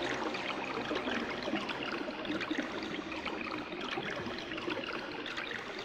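Running water, a stream trickling and gurgling, used as a nature-sound texture in an ambient electronic album track. Held synth tones stop right at the start, leaving the water on its own.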